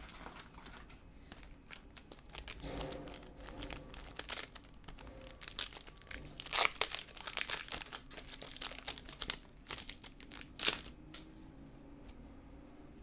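Trading-card pack wrapper crinkling and tearing as it is opened: a run of crackles, loudest about ten and a half seconds in.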